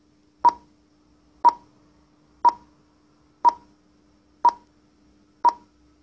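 Short electronic beeps, one every second, six in all, over a faint steady hum.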